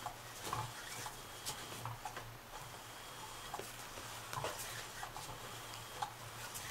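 Cat's Meow motorised cat toy running: a low steady motor hum, with light ticks and nylon rustles as the hidden wand moves under the fabric skirt and a cat paws at it.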